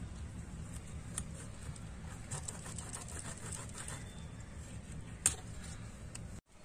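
Soft taps and scrapes of mud eel being sliced into pieces on a boti blade, scattered irregularly, with one sharper click about five seconds in, over a steady low background noise.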